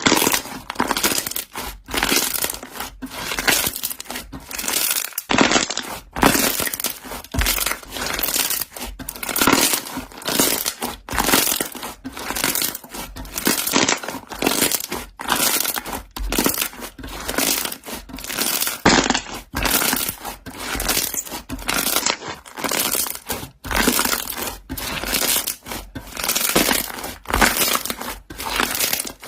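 Air bubbles in slime popping and crackling as it is pressed and squeezed, in a long run of short crackly squeezes about one a second.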